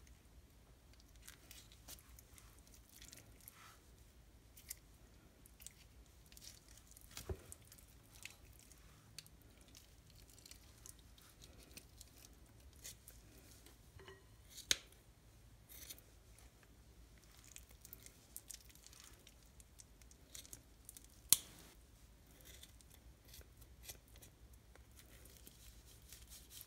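Raw chicken drumsticks being trimmed into chicken lollipops: faint, scattered snips and clicks of a cutting blade and shears on skin and tendon at the bone end, with soft wet handling of the meat. Two sharper clicks stand out, one near the middle and one about two-thirds through.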